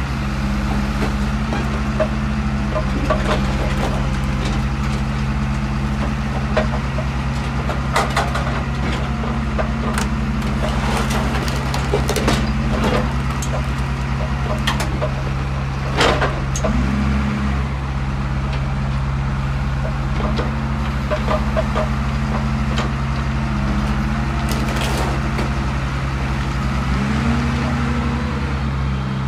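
Heavy diesel machinery running steadily, with scattered sharp metal clanks and cracks as a junk car is set and shifted into a car crusher. The engine note shifts briefly about a third of the way in and again near the end.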